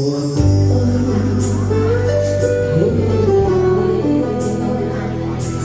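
Live music played by a small band: acoustic guitar and keyboard with a woman singing into a microphone. A steady low bass and fuller accompaniment come in about half a second in under the held notes.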